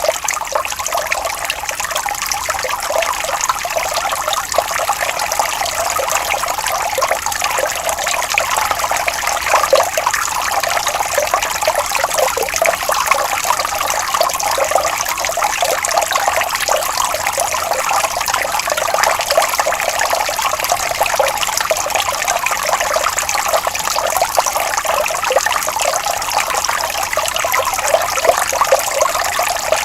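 Water trickling and flowing gently over stones in a small stream, a steady bubbling babble without pause.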